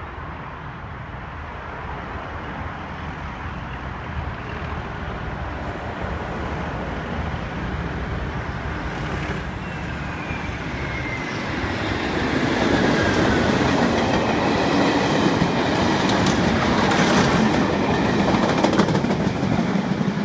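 Class 37 diesel locomotive with its English Electric V12 engine hauling a test train through a station, growing steadily louder as it approaches and passes, with a thin falling tone midway. Near the end the coaches' wheels click over the rail joints as they go by.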